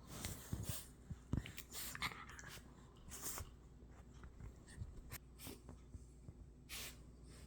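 Blue heeler puppy scratching and scuffling, a faint scatter of short scratchy noises, some longer than others.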